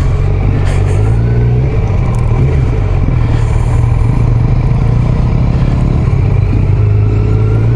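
Kawasaki Z900's inline-four engine running at low revs while the motorcycle rolls slowly, its pitch rising and falling a little with small throttle changes.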